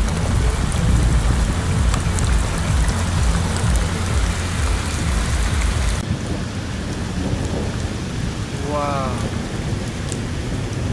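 Heavy rain pouring down on pavement and foliage, a dense steady hiss. For the first six seconds a deep rumble runs beneath it, then stops abruptly.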